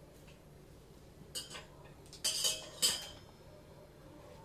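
A few sharp metallic clinks and clanks from a metal baking tray being handled: one about a second and a half in, then a quick cluster of two or three around two and a half to three seconds in, each with a short ringing tail.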